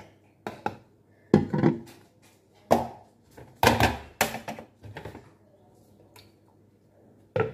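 Plastic kitchenware knocking and clattering on a counter as it is handled: a funnel, a plastic feeding bottle and a plastic measuring jug. There is a string of separate knocks, with the heaviest thuds about one and a half and four seconds in.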